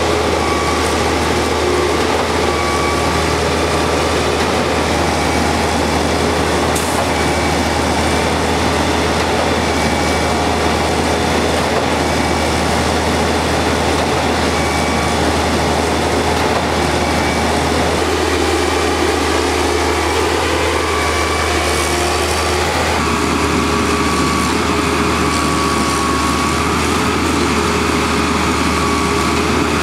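Diesel engine of a concrete boom pump truck running steadily, a constant low drone with a faint thin whine above it. Its tone shifts twice in the later part.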